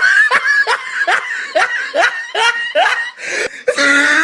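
A person laughing hard in a rapid string of short laughing bursts, about two or three a second, with a longer drawn-out squeal near the start and near the end.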